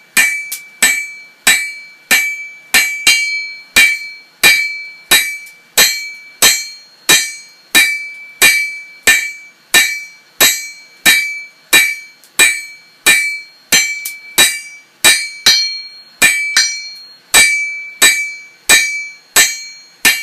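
Hammer blows drawing out a hot bar of tool steel on an anvil, in a steady rhythm of about three strikes every two seconds, each with a bright metallic ring.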